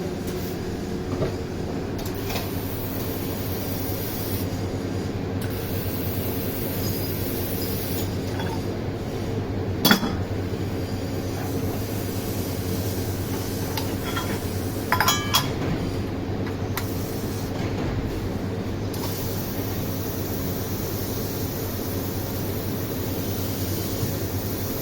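Steady machinery hum on a metalworking factory floor, with one sharp metallic clink about ten seconds in and a quick run of clinks around fifteen seconds.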